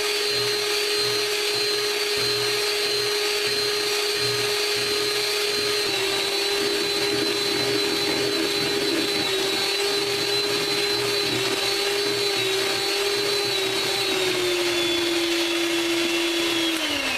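Electric hand mixer running steadily, beating egg yolks and sugar until pale. Its motor whine drops slightly in pitch a couple of times as it works, and right at the end it is switched off and the whine begins to fall.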